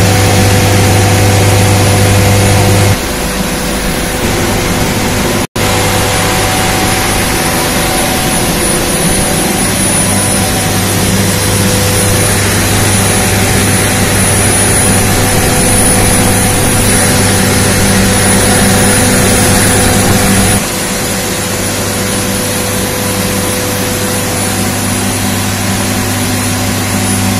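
Single-stage back-pressure steam turbine and its generator running at load: a steady loud hiss and drone with a constant hum and a high steady whine. The level steps down about three seconds in and again near the end, with a split-second cut-out about five seconds in.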